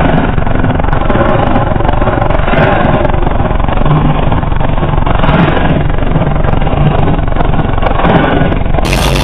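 Ground Zero GZPW15 Limited 15-inch subwoofers in a fourth-order bandpass box playing bass at extreme level inside a car cabin. The sound is a loud, heavily distorted, steady rumble.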